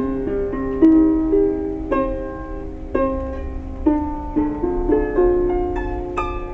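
A traditional Japanese plucked lute played solo: single notes plucked roughly once a second and left to ring, some of them bent in pitch after the pluck.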